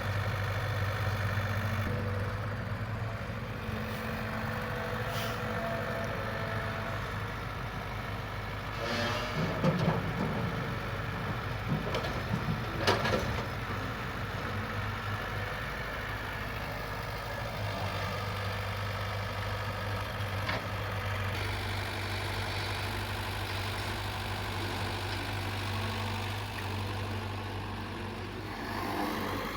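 Excavator's diesel engine running steadily, with a few sharp knocks about ten and thirteen seconds in.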